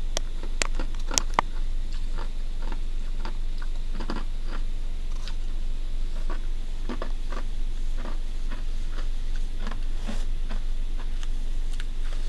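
Steady low hum with scattered light clicks, taps and rustles of gloved hands handling paper towels and tattoo equipment.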